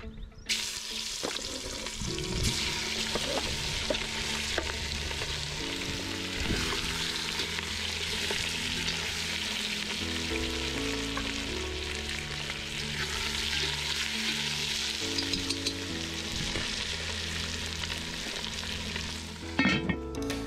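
Chicken pieces sizzling as they brown in hot oil in a cast-iron potjie pot. The sizzle starts about half a second in and dies down near the end, when a few clicks are heard. Background music with a low, stepping melody plays underneath.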